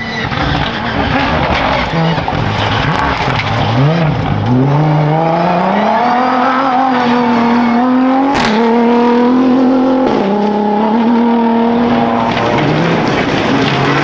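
Rally-raid cars at full throttle on a gravel stage: an engine revving up through the range, rising in pitch, with one sharp crack just past halfway and a drop in pitch about two seconds later as it shifts up, then running at high revs.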